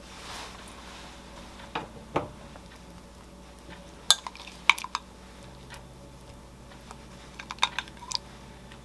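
Scattered light clicks and clinks of kitchen utensils: metal tongs and a glass container knocking as food is placed into a wooden bowl. A couple of soft knocks about two seconds in, sharper clinks around four to five seconds, and a quick run of clicks near the end.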